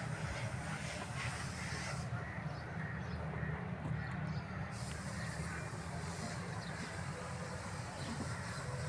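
Crows cawing over a steady low rumble.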